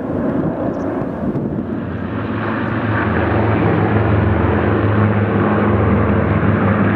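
Avro Lancaster flying past with a Spitfire and a Hurricane: the Lancaster's four Rolls-Royce Merlin piston engines give a steady low drone that grows louder from about two seconds in. Before that, a brief broader rush from a passing formation of Hercules turboprop transports.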